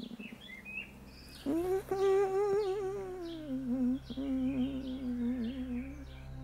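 A single voice humming a slow, wordless melody with vibrato. It comes in about a second and a half in and drops to a lower held note about halfway through. Before it starts, birds chirp faintly.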